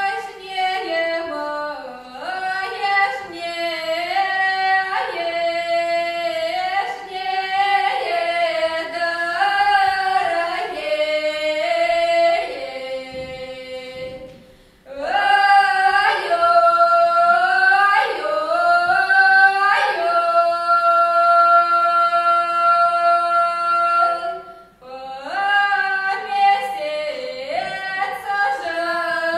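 Two women's voices singing a traditional Russian reaping song unaccompanied, in long sung phrases. The singing breaks off for a breath about halfway and again near the end, and one note is held long before the second break.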